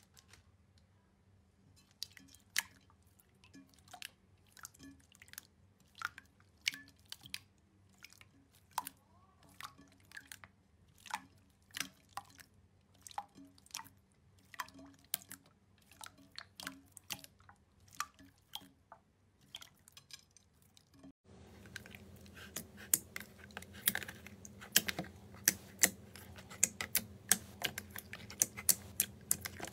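Clear blue sequin-filled slime being pressed and stretched by hand, giving sharp little pops and clicks about once or twice a second. About two-thirds of the way through it switches to white slime squeezed in a plastic tub, with pops that come much thicker and faster.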